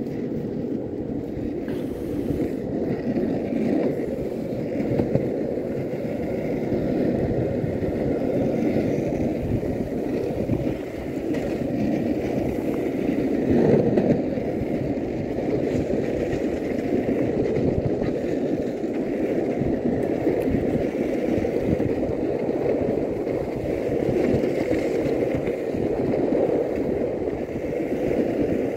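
Skateboard wheels rolling over an asphalt path, a steady rumble with a slightly louder moment about halfway through.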